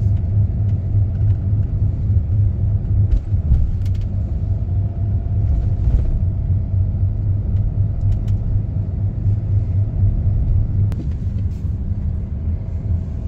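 Steady low rumble of a car driving along the road, engine and tyre noise heard from inside the moving car's cabin.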